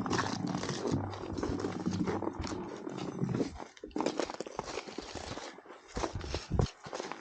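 Footsteps of hikers walking a frozen winter trail, a run of uneven steps, with a low steady hum under the first half.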